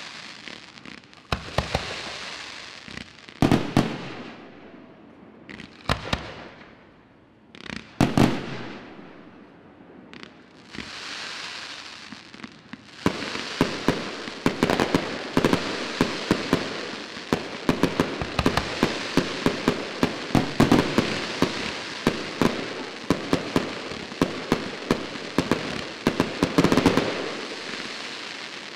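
Fireworks display: separate loud bangs of shells bursting, with hissing in between, then from about halfway a fast, continuous string of shots and crackling as a rapid volley of fireworks fires off.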